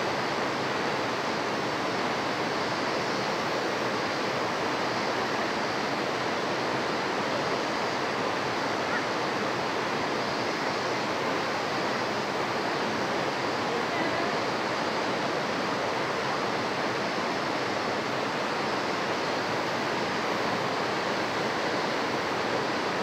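Steady rush of flowing water, an even noise with no breaks or surges.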